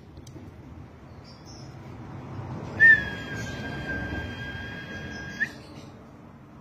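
Fischer's lovebird giving one long, steady, high-pitched note of nearly three seconds. It starts sharply about three seconds in and ends with a short upward flick. This is the long unbroken 'ngekek' call prized in konslet lovebirds. A few faint chirps come before it.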